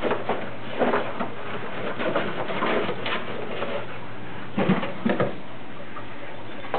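Rottweilers snuffling and sniffing in short bursts as they push their noses at a box of dog treats, with soft low grunting sounds; the loudest cluster comes a little past halfway through.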